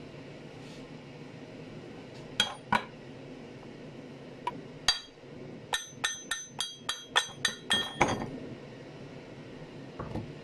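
Sharp metallic clinks, then a quick run of about ten ringing metal-on-metal taps, about four a second, on an old rusty hatchet head.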